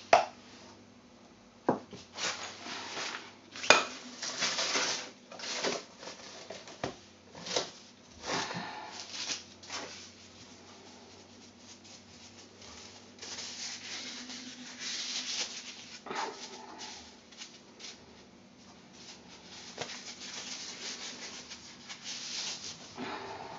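Utensils and a stainless steel pot being handled on a worktop: a few sharp knocks and clatters, then longer stretches of rubbing and scraping.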